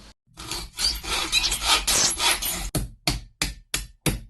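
Hand tool scraping back and forth on wood, like sawing or rasping: dense, quick strokes at first, then short separate strokes about three a second.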